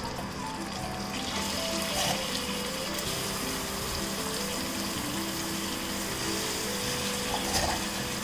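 Mutton pieces sizzling in hot ghee and oil in a steel pan, the hiss building about a second in as more pieces go in, with a couple of soft knocks as pieces land. Background music plays over it.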